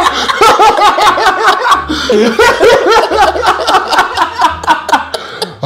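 Two men laughing hard together, a long fit of rapid, repeated pitched laughs that overlap.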